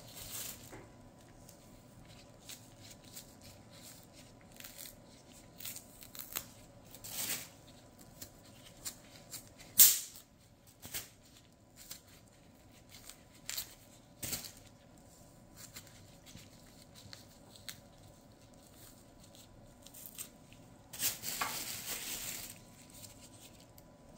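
Green figs (unripe bananas) being peeled by hand with a small knife: scattered short scrapes of the blade and tearing of the tough peel, with a sharp click about ten seconds in and a longer rustle of peel or plastic bag about three quarters of the way through.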